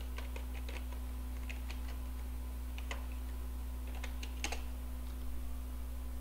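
Typing on a computer keyboard: a string of irregular key clicks as a password is entered, stopping about four and a half seconds in. A steady low electrical hum runs underneath.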